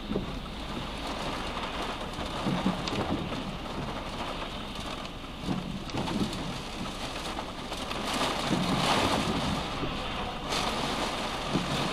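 Heavy rain drumming on a car, heard from inside the cabin, with soft thuds from the windscreen wipers every few seconds. About eight seconds in, a lorry pulling alongside on the wet road adds a louder hiss that drops away abruptly a couple of seconds later.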